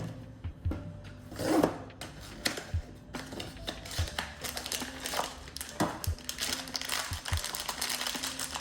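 Small plastic pieces clicking and tapping as a blind-box vinyl figure and its packaging are handled, with a short rustle about one and a half seconds in. Soft background music runs underneath.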